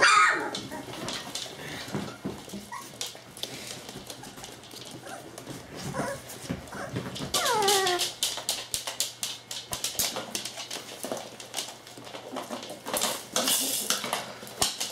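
Springer spaniel puppies whimpering and yelping as they play: a high whine at the start and a longer one falling steeply in pitch about seven and a half seconds in, over scuffling and clicking as they tumble about on the wooden floor.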